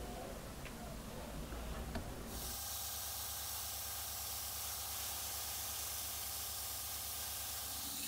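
Faint small clicks of handling, then about two seconds in an airbrush starts spraying paint: a steady hiss with a low steady hum underneath.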